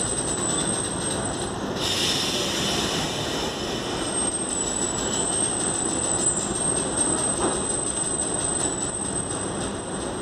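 CPTM electric multiple unit 4424 departing a station, its motor roaring loudly over a steady rail rumble. A thin high whine wavers above the noise. It drops out for about two seconds, starting about two seconds in, while a brighter hiss takes over, then returns.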